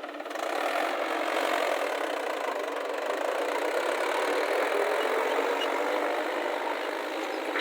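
Diesel engine of heavy earth-moving machinery running steadily, getting louder about a third of a second in and then holding.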